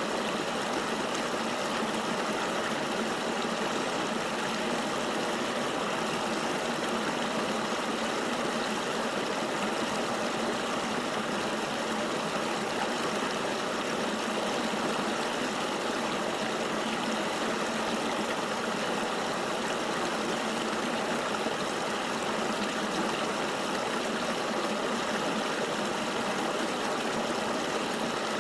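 River water flowing in a steady, even rush, with no splashes or changes.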